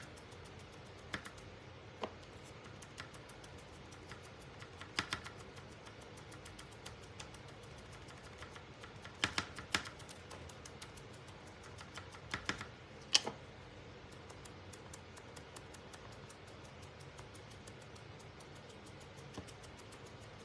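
Scattered light taps and clicks of a small wooden craft cutout being handled and painted on a tabletop, over a steady low room hum. A few come in quick clusters, the sharpest about thirteen seconds in.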